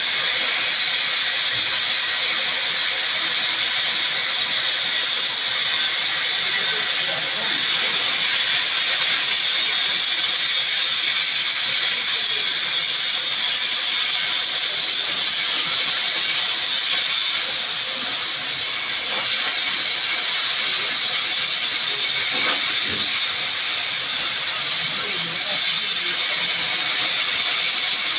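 Oxy-fuel cutting torch hissing steadily as its flame and oxygen jet cut through a thick flat steel spring leaf.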